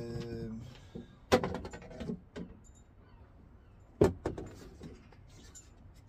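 The white plastic door panels of a Russell Hobbs tumble dryer clicking and knocking against each other as they are handled and separated. There are two sharp clicks, a little over a second in and about four seconds in, each followed by a few smaller knocks.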